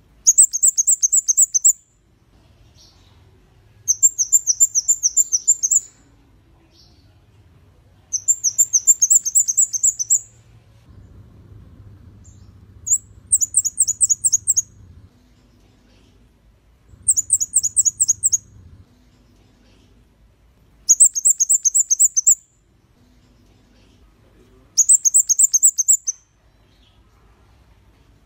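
Red-headed flowerpecker (kemade kepala merah) singing: short bursts of rapid, very high, falling notes, each burst about two seconds long, repeated about every four seconds.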